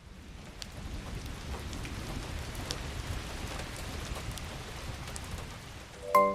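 Steady rain falling, with scattered drops ticking and a low rumble underneath, fading in at the start. Near the end the first pitched synth notes of the song come in.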